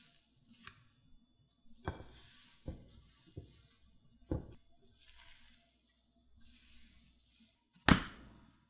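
Hands punching down and pulling risen yeast bread dough in a glass bowl to degas it: a few soft dull thuds and the sticky, stringy dough tearing away from the bowl. Near the end comes a single heavier thud as the dough ball lands on a silicone mat.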